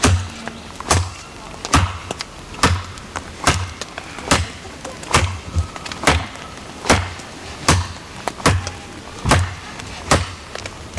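ESEE-5 fixed-blade survival knife chopping into a half-rotten oak branch: thirteen sharp, evenly spaced chops, a little more than one a second.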